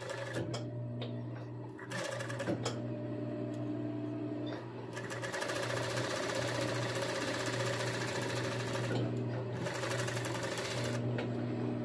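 Industrial sewing machine with a tape binder stitching binding tape onto fabric. Short bursts of stitching come near the start and about two seconds in, then longer runs from about five seconds and again around ten seconds, over a steady hum.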